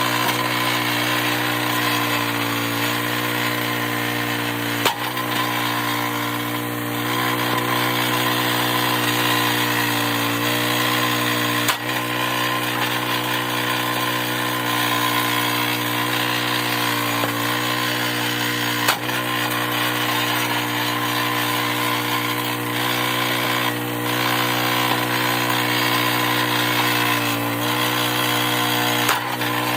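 Log splitter's small gasoline engine running steadily, its pitch sagging briefly each time the hydraulic ram takes a load. Four sharp knocks come about seven seconds apart as logs are split.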